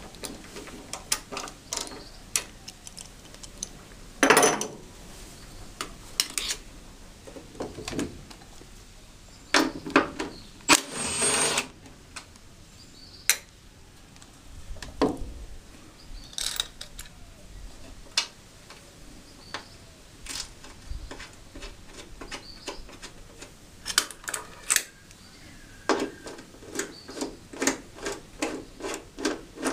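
Hand tools at work on steel bolts: scattered metallic clicks and clinks with a few brief scrapes, then near the end an even run of clicks from a socket ratchet handle tightening a bolt.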